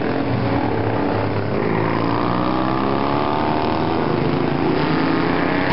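Classic road-racing motorcycle engine running hard on the approach, its pitch rising steadily as the bike accelerates up the street.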